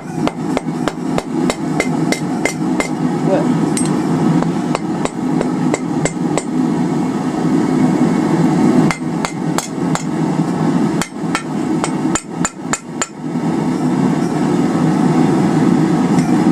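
A 3-pound cross-peen hammer striking 3/8 in round bar on an anvil in quick, even blows, about three a second, tightening a hook bend and hammering out a kink. The blows come more sparsely and unevenly for a few seconds past the middle, then pick up again, over a steady low rush of noise.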